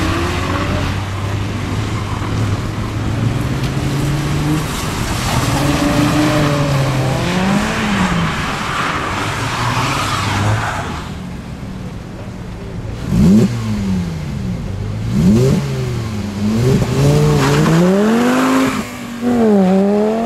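Car engines revving hard as the cars slide around on wet pavement, the engine pitch swinging up and down again and again, with a hiss of tyres on the wet surface. The revs swing faster and more sharply in the second half.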